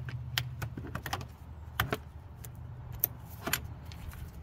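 Scattered sharp clicks and light metallic rattles of hand tools being handled, a small socket extension and a cordless electric ratchet, over a steady low hum.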